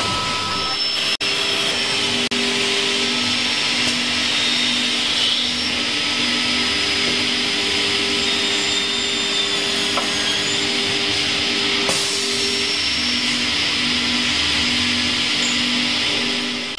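CNC machine running through a machining cycle: a steady hiss with a high thin whine over a low hum that pulses on and off, broken by two very brief dropouts in the first couple of seconds.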